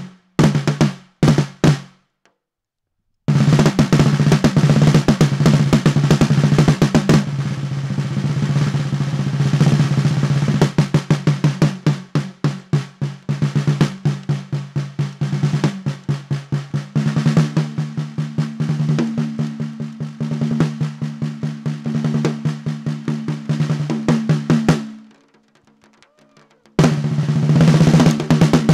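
Custom wooden snare drum played solo with sticks: fast rolls and rapid strokes over a low ringing tone from the drum. The playing breaks off briefly about two seconds in, and again about 25 seconds in before starting up once more near the end.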